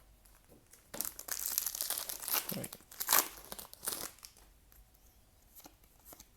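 A trading-card booster pack wrapper being torn open and crinkled in the hands: loud, irregular rustling and tearing for about three seconds, then a few faint clicks as the cards are handled.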